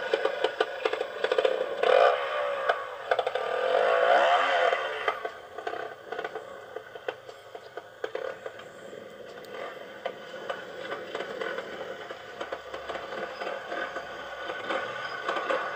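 Yamaha 250 air-cooled two-stroke trials motorcycle engine revving in short bursts that rise and fall in pitch over the first few seconds. It then drops to a quieter running sound with many small knocks and clatters, and picks up again near the end. The sound is heard as played back from a screen.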